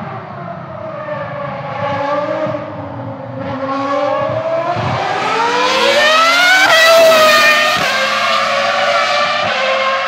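Ferrari Formula 1 car's V10 engine at lower revs, then accelerating hard: its high-pitched note climbs steeply to a peak about seven seconds in, drops sharply, and then holds steady.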